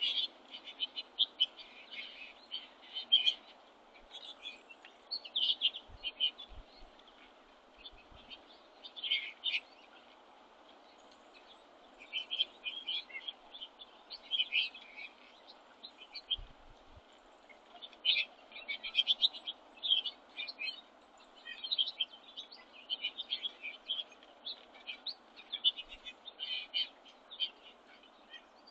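Small songbirds at a winter feeder chirping and twittering: many short, high notes in quick clusters, with short pauses between bursts, over a steady background hiss.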